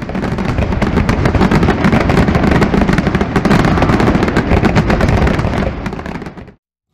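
Fireworks crackling: a dense, rapid run of sharp pops that thins out and stops near the end.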